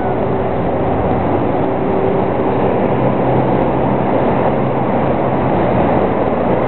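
Trolleybus pulling a trailer, running in street traffic: a steady, loud rush of noise with a low hum holding through the middle.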